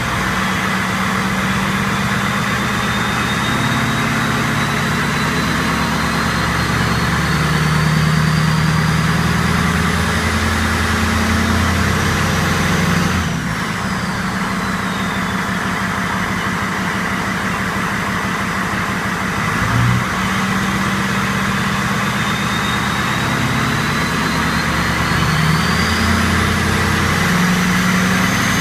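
2007 Ford 6.0 Powerstroke V8 turbodiesel running through a straight-piped exhaust, its turbo whistling. The whistle rises slowly, falls away about halfway through as the engine eases off, then climbs again near the end.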